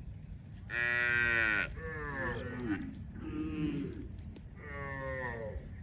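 Cows mooing: four separate moos, the first and loudest about a second in, the last near the end, each sliding down in pitch as it ends.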